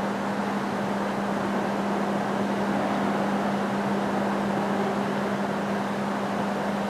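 A steady machine drone with a constant low hum running through it, unchanging throughout.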